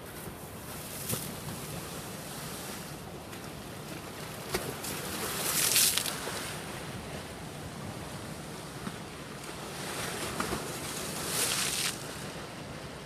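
Storm waves churning and washing against a seawall, with wind on the microphone. The rush of water swells several times, loudest about halfway through and again near the end.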